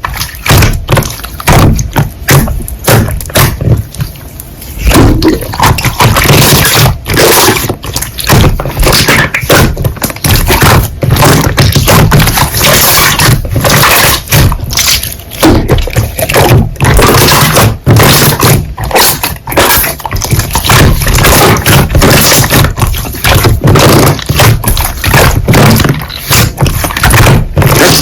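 Slime being squeezed, stretched and poked by hand, giving a dense, irregular run of sticky clicks and pops.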